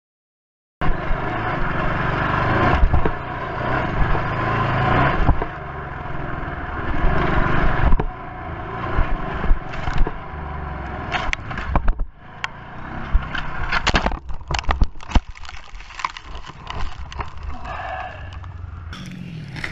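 Dirt bike engine running hard under heavy wind noise on a helmet camera, then a crash: a run of sharp knocks and scrapes as the bike and rider go down in the dirt, after which it is quieter.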